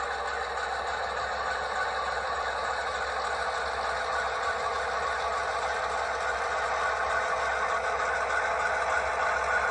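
HO scale model diesel locomotives, a GP38 leading, running slowly along the track: a steady mechanical running sound that grows slowly louder as they approach.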